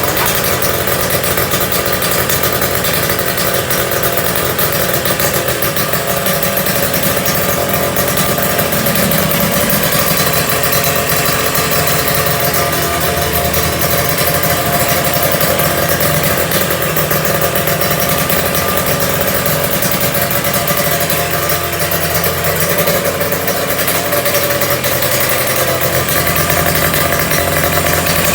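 Kawasaki Ninja 150 single-cylinder two-stroke motorcycle engine running steadily, freshly rebuilt and being set up.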